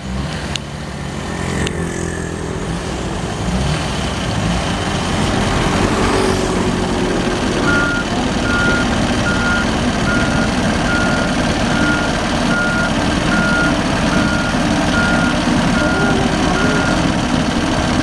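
Backhoe's diesel engine running, growing louder a few seconds in, with its reversing alarm beeping steadily at a little over one beep a second from about eight seconds in until near the end.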